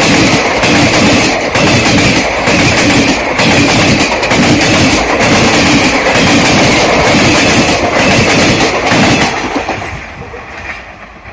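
Passenger train coaches running over railway points, their wheels making a loud, rhythmic clickety-clack about once a second. The noise falls away sharply about nine to ten seconds in.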